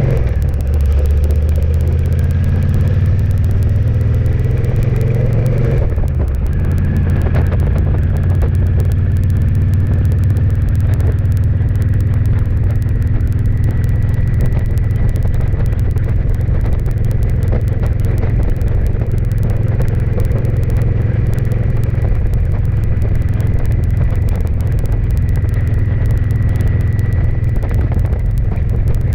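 Engine of the camera vehicle accelerating, its pitch rising for about six seconds, then dropping as it shifts up and running steadily at cruising speed with road noise.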